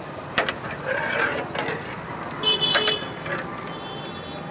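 Street traffic noise with a short, high vehicle horn toot about two and a half seconds in, and a couple of sharp clicks near the start.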